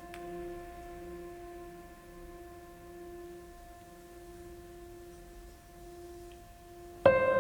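Background music: a held, slowly fading chord of steady tones, with a louder new chord striking suddenly near the end.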